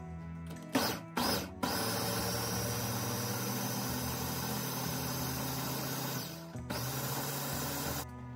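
Electric food chopper's motor pulsed twice, then run steadily for about five seconds while it purées chopped vegetables, with a short break before a final run of about a second and a half. Soft background music plays underneath.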